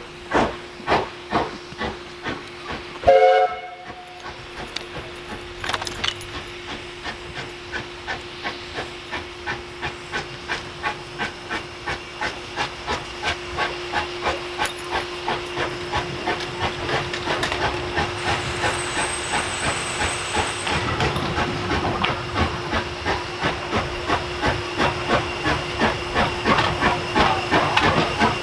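Steam locomotive working, its exhaust chuffing in a steady beat that gets quicker and louder. It gives one short whistle blast about three seconds in.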